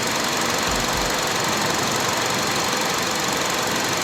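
Steady running noise from the engine bay of a 2005 Honda CR-V with its 2.4-litre four-cylinder engine idling, an even whooshing hum with no changes.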